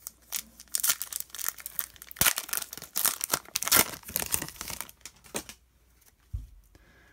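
A foil trading-card pack wrapper being torn open and crinkled by hand, with dense rustling for the first five seconds or so. It is followed by a soft knock near the end.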